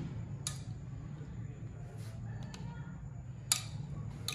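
Metal spoon clicking against plastic cups and a plate as jelly is scooped and dropped into the cups: a few short clicks spread out, the sharpest about three and a half seconds in, over a steady low hum.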